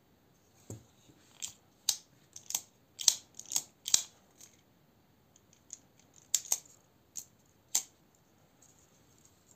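Eafengrow EF966 folding knife being opened and closed by hand several times: a dozen or so sharp clicks as the blade snaps open and shut, in two clusters.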